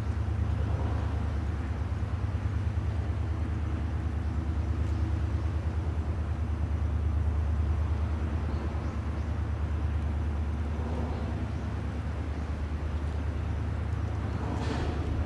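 Patrol vessel's engines heard across the water: a low, steady drone with a fast, even pulsing beat.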